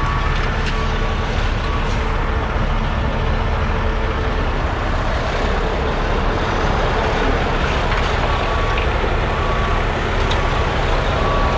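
Heavy diesel dump truck engine running steadily, with a backup alarm beeping about once a second at the start and again from about eight seconds in.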